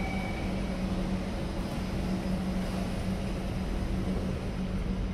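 Steady hum and rumble of an underground metro station platform, with a constant low drone from ventilation and a train standing at the platform.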